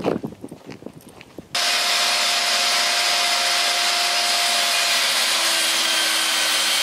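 Electric power sander running steadily on wood, cutting in suddenly about a second and a half in. Its motor tone shifts a little near the end.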